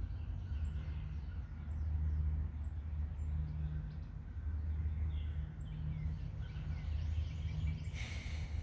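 Outdoor ambience: a steady low rumble, with small birds chirping faintly here and there and a thin steady high tone. A brief rustling burst comes near the end.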